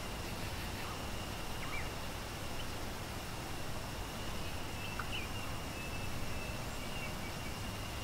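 Steady rushing of a waterfall, with a thin, steady high tone and a few short bird chirps about two and five seconds in.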